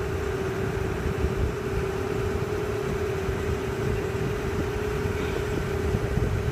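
Sightseeing boat's engine running steadily: a constant hum held throughout over a low, uneven rumble.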